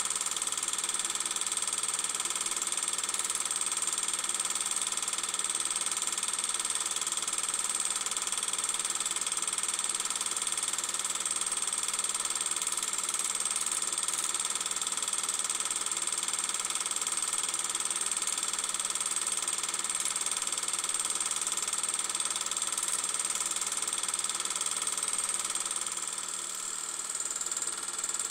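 Steady mechanical whirring with an even hiss, unchanging throughout, dipping slightly near the end.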